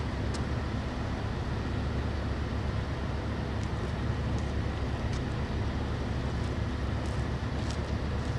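Steady low rumble and hum of the ferry Orange Osaka's engines running as it departs, with a few faint ticks.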